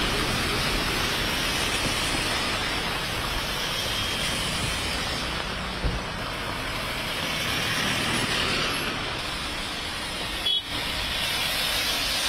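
Street noise in heavy rain: a steady hiss of rain and vehicle traffic on waterlogged roads, with a brief break near the end.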